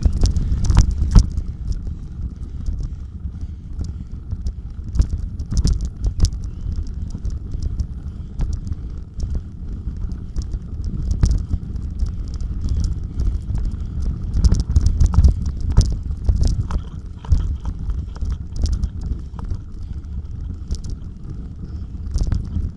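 Bicycle riding over a rough off-road trail, with frequent rattles and knocks from the jolting bike. A steady low rumble of wind buffets the microphone.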